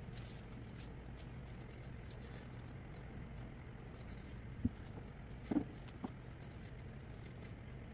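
Faint small handling noises at a work table: scattered soft ticks and a couple of sharper clicks over a steady low hum, with a brief murmur about five and a half seconds in.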